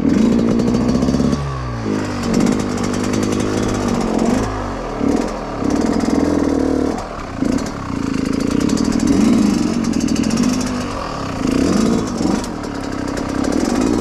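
Yamaha YZ125X two-stroke dirt bike engine revved in short bursts at low speed, its pitch climbing and dropping several times as the throttle is opened and closed.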